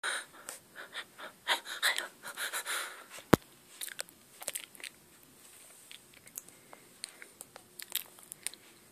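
Rustling and clicking handling noise as a handheld camera is moved around a small room: a run of rustles over the first three seconds, a single sharp click a little past three seconds, then scattered faint ticks.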